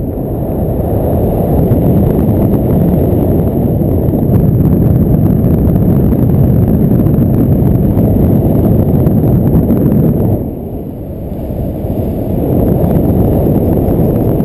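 Wind rushing over the action camera's microphone in flight, a loud, low rumble that eases for a second or so about ten seconds in, then builds back up.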